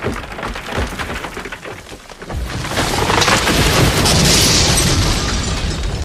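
Thunder: a run of sharp crackles, then a loud rolling rumble that builds from about two seconds in and cuts off suddenly at the end.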